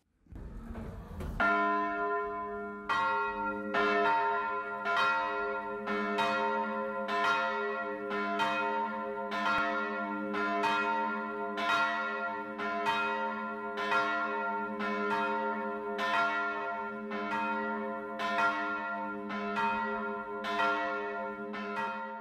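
Church bells ringing, about two strikes a second, their hum carrying on between the strikes. A brief low rumble comes just before the first strike, and the ringing fades out at the very end.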